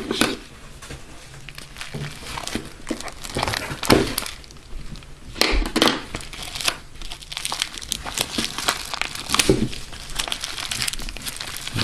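Parcel packaging being unwrapped and torn open by hand: irregular crinkling and crackling with a few sharper tearing rips.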